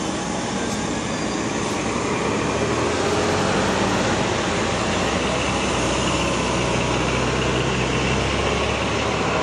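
Road traffic: a steady wash of tyre and engine noise from vehicles driving slowly past, with a low engine rumble that strengthens about three seconds in.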